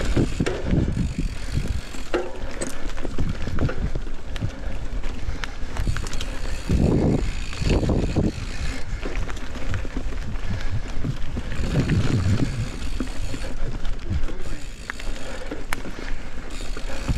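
Mountain bike riding a dirt forest singletrack: tyres rolling over dirt and the bike rattling, with many sharp clicks and a few louder low rumbles as it goes over rougher ground.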